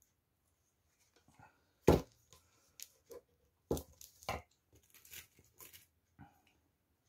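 Knocks and rattles of a small metal oil can and tools being handled and set down on a work table, with the loudest knock about two seconds in, two more about two seconds later, and lighter clicks and rustling near the end.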